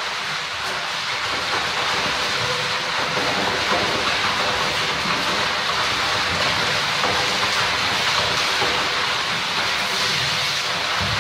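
Water splashing and spraying continuously as a gorilla churns and sweeps its arms through a shallow plastic paddling pool.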